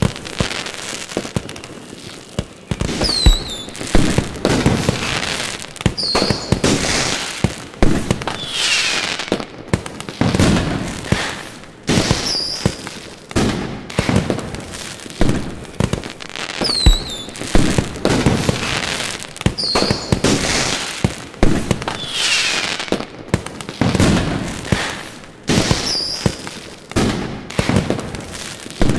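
Fireworks display: a dense run of bangs and crackling shell bursts, with short falling whistles every few seconds.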